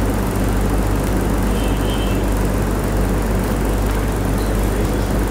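Steady low hum with a constant hiss, unchanging in level, from the auditorium's background: electrical hum and ventilation noise picked up by the recording.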